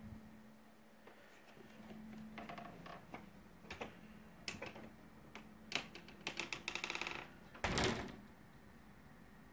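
Scattered sharp clicks and creaks, with a fast rattling run of clicks about six seconds in and a louder short rustling thump about two seconds before the end. A faint steady hum sits under the first couple of seconds.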